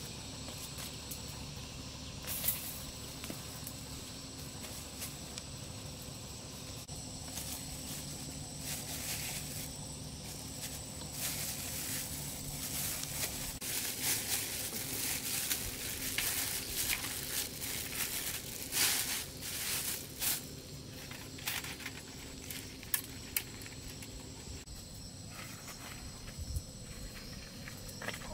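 Insects shrilling high and steady, with a long run of rustling and crackling clicks through the middle.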